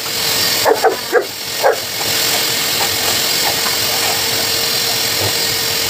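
Pet blow dryer running with a steady hiss and hum, while a Saint Bernard puppy barks at the nozzle about four times in quick succession in the first two seconds.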